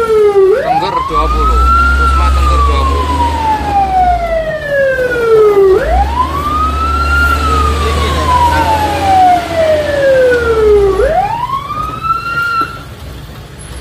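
Fire truck siren wailing, heard from inside the cab with engine and road rumble underneath. Each cycle rises quickly and then falls slowly, repeating about every five seconds: three wails. It cuts off shortly before the end.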